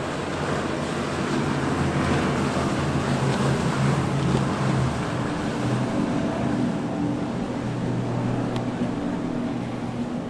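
Quad outboard motors on a large center-console boat running at speed, a steady multi-engine drone over the rush of its wake and wind on the microphone. The drone swells to its loudest about four seconds in and eases off a little after.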